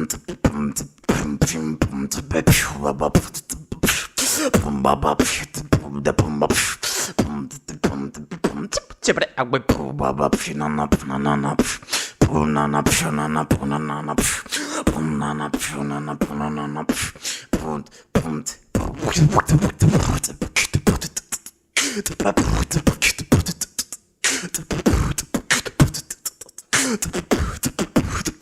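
Vocal beatboxing: rapid mouth-made kick, snare and hi-hat clicks. For roughly the first half a low hum runs under the beat; after that it is percussion alone, with a couple of brief breaks.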